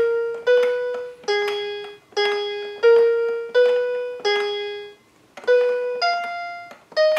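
The VTech Baby Amaze play set's electronic melody playing through its small built-in speaker: a simple tune of single piano-like notes, about one every 0.7 s, with a short break about five seconds in before it carries on.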